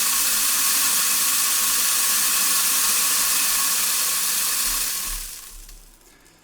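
About a kilo of dry desiccant poured steadily through a 3D-printed funnel into a plastic basket: an even rushing hiss that tails off about five seconds in as the pour ends.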